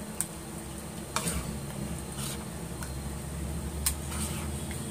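A spoon mixing chicken pieces through a thick yogurt marinade in a bowl: soft wet stirring with a few light clicks of the spoon against the bowl.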